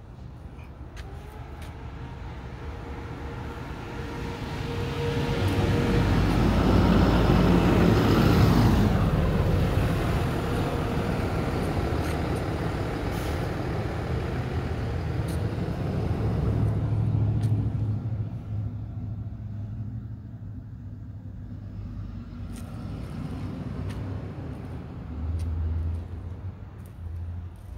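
A motor vehicle passing close by. Its sound swells over several seconds and is loudest around eight seconds in, with its pitch falling as it goes past, then fades to a low rumble.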